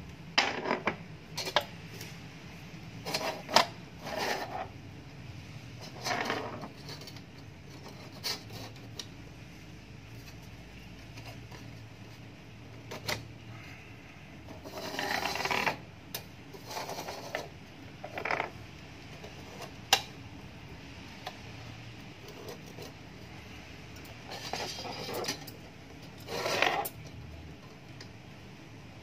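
Thin titanium stove-base plates and a camping stove's metal legs clicking, clinking and scraping as they are handled and clipped together. The knocks and rubs come irregularly, in short clusters with pauses between.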